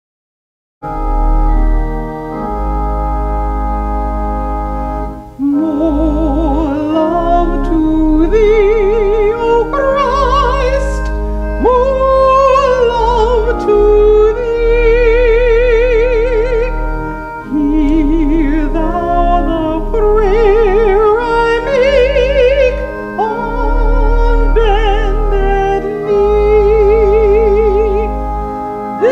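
Solo female voice singing a hymn with a wide vibrato over sustained keyboard chords. The keyboard starts alone about a second in, and the voice enters about five seconds in.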